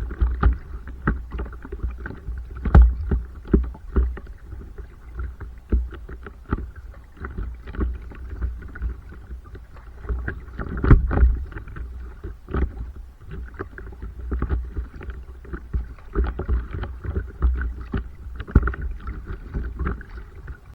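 Stand-up paddleboard on the water: irregular splashing and lapping of paddle strokes and water against the board, the loudest splashes about 3 and 11 seconds in, over a steady low rumble.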